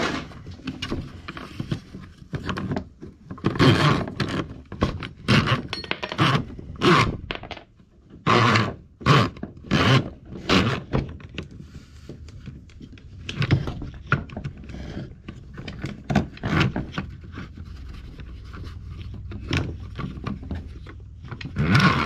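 A coiled steel drain cable scraping and rattling in irregular bouts as it is worked by hand through the front of a Ryobi P4001 drain auger and into its drum, with knocks from the auger's plastic housing parts.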